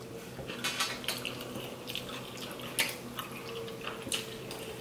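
Close-up eating sounds: wet chewing and slurping of fettuccine Alfredo noodles, with a few short sharp clicks of forks against plates.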